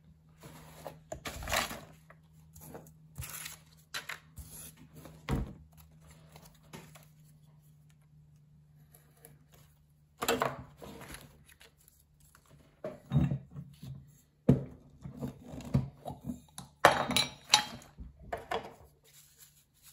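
Scattered knocks, taps and rustles of paper and art materials being handled on a wooden drafting table, over a faint steady hum. There is a quieter pause about a third of the way in, and the handling picks up again with a run of sharper clicks.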